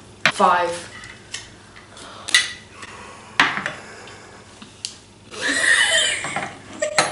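A metal spoon clinking against opened tin cans: a few sharp single clinks, then a quick run of them near the end. Laughter and short cries come in between.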